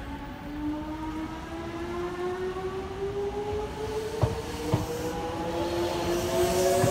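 Electric train of the Hakone Tozan Railway pulling away: its motors whine in a steady tone that rises slowly in pitch as it gathers speed, with a couple of clacks from the wheels over rail joints about four seconds in.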